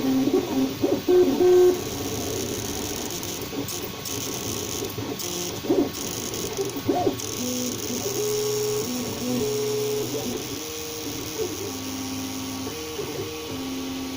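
Prusa i3 MK2 3D printer printing: its stepper motors hum in steady tones that jump between pitches as the moves change, with a few short clicks. This is the noise the owner calls weird while extruding.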